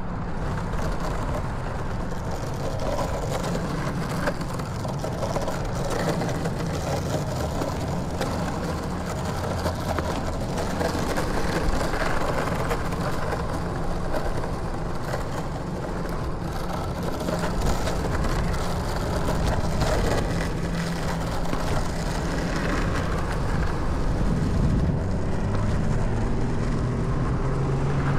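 Longboard wheels rolling steadily over rough asphalt, a continuous road rumble.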